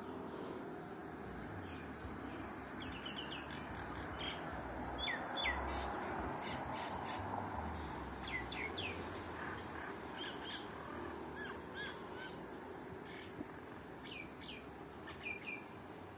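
Small birds calling: scattered short chirps and quick downward-sliding whistles, over a steady high-pitched hiss.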